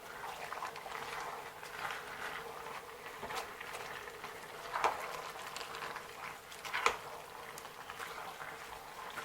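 Pot of eru soup bubbling as it cooks, a steady low bubbling, with three sharp knocks, the loudest about seven seconds in.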